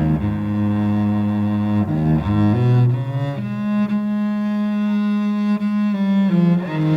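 Instrumental break of a song with no vocals: low notes, tagged as cello-like bowed strings, held for about a second or more each and moving from one pitch to the next.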